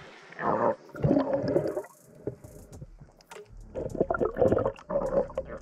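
Water sloshing and gurgling close to the microphone, in two irregular surges with scattered small clicks.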